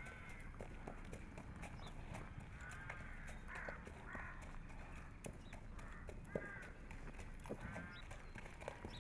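A horse walking in hand on a sandy yard, its hooves giving scattered soft clops, while birds call several times in short cries.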